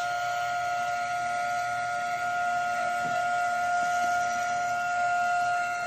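Small electric impeller water pump running with a steady high-pitched whine as it pumps ballast water out of a water bladder.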